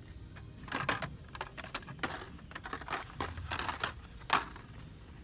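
Hot Wheels blister-card packages being flipped through on a metal display peg: a run of clicks and plastic-and-card clatter, the sharpest one near the end.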